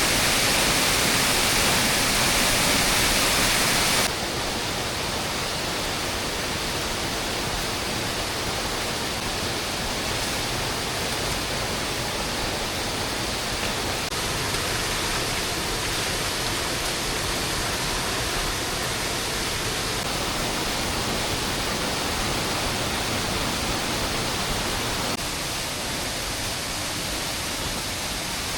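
Heavy rain falling, a steady hiss. It is louder and brighter for the first four seconds, then drops suddenly to a slightly softer, even downpour.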